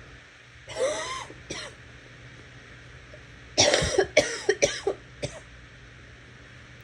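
A person coughing and gagging: a drawn-out gagging cough with a voiced catch about a second in, a short cough after it, then a hard fit of about six quick coughs from about halfway through.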